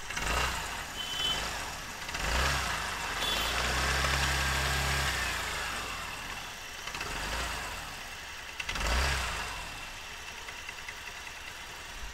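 TVS Ntorq 125 scooter's single-cylinder, three-valve engine running, picked up close against the engine casing, rising and falling in level several times with the biggest swell about four to five seconds in. It runs smoothly with no timing-chain rattle, the chain having been re-tensioned by resetting a stuck tensioner.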